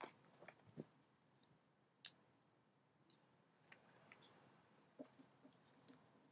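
Near silence with faint, scattered clicks and light taps from a roll of tape being handled while a ferret grabs and nibbles at it, a few near the start and a small cluster near the end.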